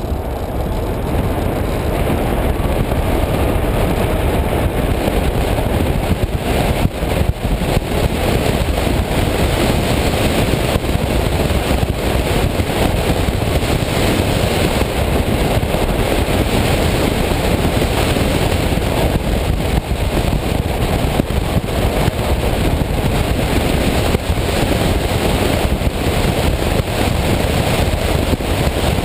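Wind rushing over an externally mounted camera on a City-EL electric microcar driving at speed, with tyre noise on asphalt. The electric motor's whine rises briefly near the start and is then lost under the wind.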